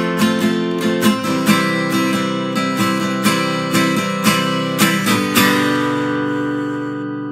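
Guitar strumming in the closing bars of a country song, ending about five seconds in on a final chord that rings on and slowly fades.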